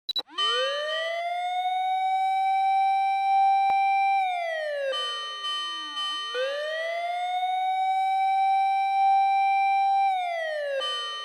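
Japanese fire engine's siren on a fire run, wailing in long cycles. It winds up in about a second, holds a steady high wail for about four seconds, then winds down, and it does this twice.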